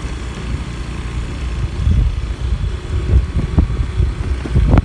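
Motorcycle engine running and wind buffeting the microphone as the bike rides along, an uneven low rumble with a few short knocks in the second half.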